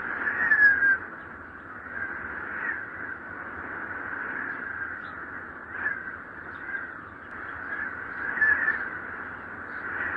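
Whistling wind from a wind sound effect: a hissing, wavering tone that swells and fades in gusts every two to three seconds, its pitch sliding briefly on the louder gusts.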